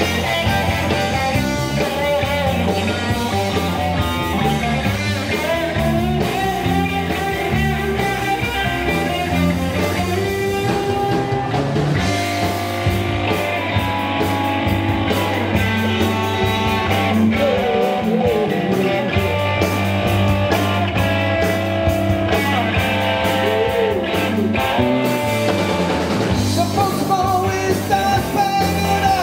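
Live rock band playing: electric guitars over a drum kit and a steady low end, with sustained, bending lead notes.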